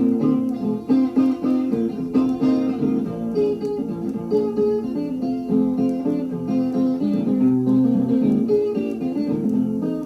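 Blues guitar playing alone: a steady repeated bass note under quick picked notes.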